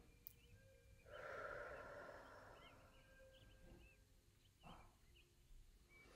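Near silence, with a soft, slow breath out into the microphone starting about a second in and fading away, and a shorter breath a little before the end.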